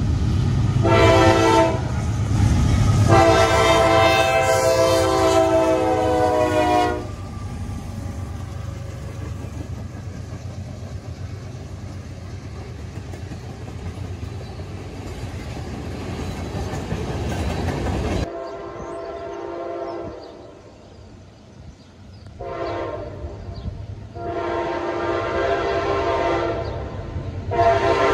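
Norfolk Southern diesel locomotive horn sounding a chord in three blasts, two short and then one long, as the train approaches. The freight cars then roll past with a steady rumble and wheel clatter. After a sudden cut, another locomotive horn sounds two more long blasts near the end.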